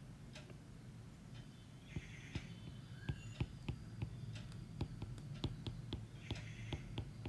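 Faint, irregular light clicks and taps, several a second in the latter part, with two short scratchy rustles, over a low steady hum.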